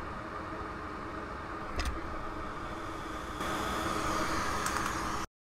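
Hot air rework station blowing steadily onto the circuit board while flux and solder reflow, with a short click about two seconds in. The airflow gets louder a little past halfway, then cuts off suddenly.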